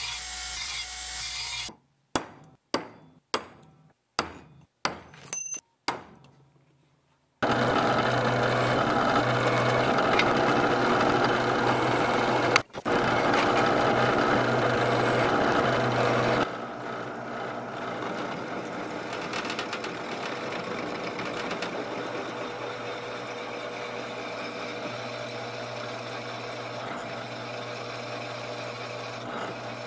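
A belt grinder briefly grinds the edge of a steel plate. Then comes a run of about seven sharp knocks. After that a drill press runs, drilling through thick steel plate with a steady motor hum, loud at first and somewhat quieter from about halfway through.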